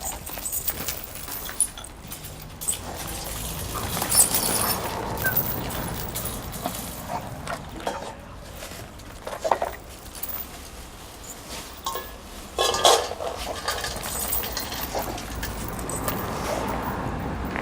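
Scattered metallic clinks and rattles while chained dogs are fed, the loudest knocks coming about four, nine and a half and thirteen seconds in.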